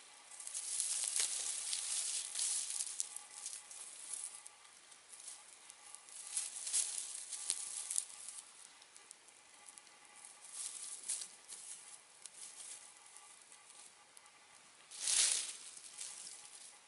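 Campfire burning, crackling and hissing in uneven waves: a long run in the first few seconds, more around the middle, and a short, louder hiss near the end.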